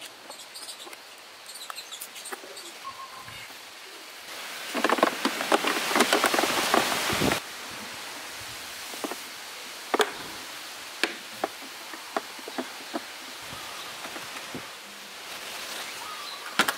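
Hand-work noises while closing up a scooter's battery compartment: a few seconds of dense rattling and scraping about a third of the way in, then a string of single sharp clicks about once a second as the plastic battery cover is fitted.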